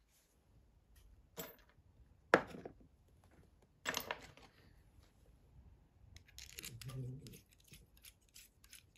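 Small metal crossbow-bolt parts handled on a wooden workbench: a few sharp clicks and knocks, the loudest about two and a half seconds in, then a run of quick light clicks near the end.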